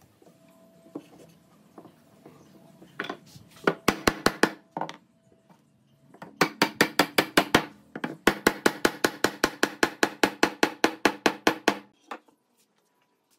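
Hammer tapping pine rails down into the notched joints of the table legs. A few separate knocks come first, then two long runs of quick, even taps, about seven a second, each with a short wooden ring.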